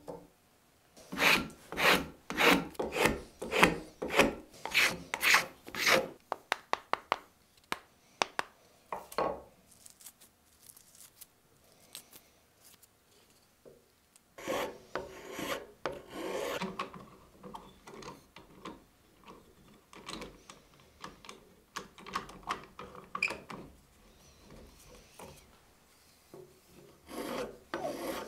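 Spokeshave taking shavings off a hickory hammer handle held in a vise: a quick run of scraping strokes, about two a second, then lighter strokes, a pause, and further bursts of strokes.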